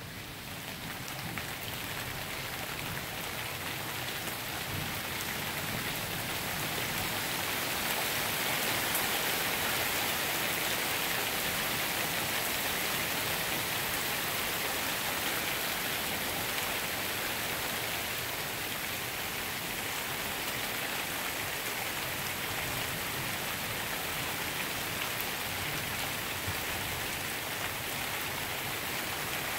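Heavy thunderstorm rain pouring steadily onto grass and pavement, the downpour swelling over the first several seconds and then holding.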